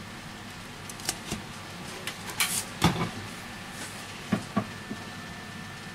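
Scattered light clicks and taps of a smartphone's plastic-and-metal frame being handled and turned over in the hands, the loudest a little under three seconds in.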